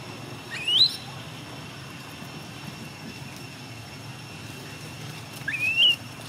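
Two short whistle-like animal calls, each rising in pitch, about five seconds apart, over a steady outdoor background with a faint steady high tone.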